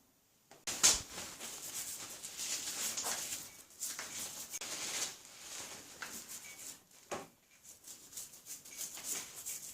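Hands working on a bicycle's rear derailleur: irregular rubbing and scraping, with a sharp click about a second in and another about seven seconds in.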